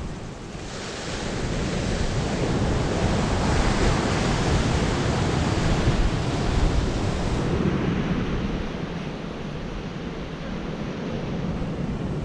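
Surf breaking and washing up a sandy beach, swelling over the first couple of seconds and easing off after about seven seconds, with wind buffeting the microphone.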